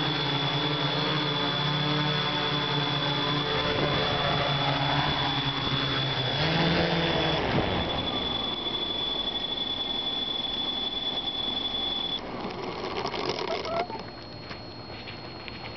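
Hexacopter drone's electric motors and propellers running, heard from the camera on board. The pitch wavers and then cuts out about seven seconds in as the drone comes down in the grass, leaving a thin steady high tone and some light rustling and clicks.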